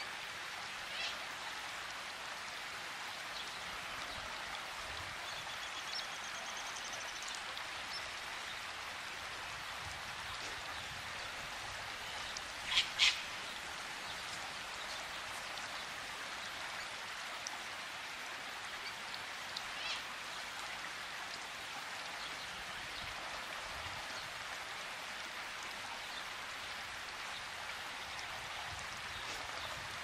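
Steady rain falling, an even hiss, with a few short bird calls over it; the loudest is a quick pair of calls about halfway through.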